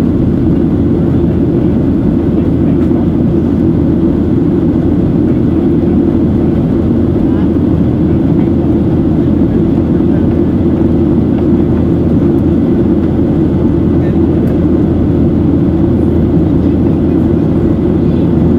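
Steady cabin noise of a Boeing 737-800 in flight: the drone of its CFM56-7B jet engines and the rush of air over the fuselage, heaviest in the low range below about 400 Hz.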